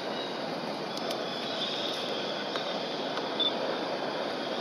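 Steady outdoor background noise, an even low hiss, with a faint thin high tone and a couple of soft clicks.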